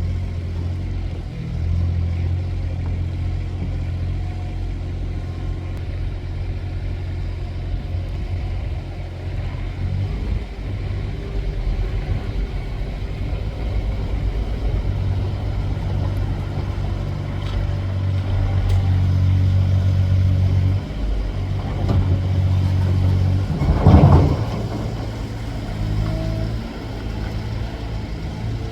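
Heavy construction machine's engine running steadily with a low drone, its level rising and falling as it works, and a brief loud surge about three-quarters of the way through.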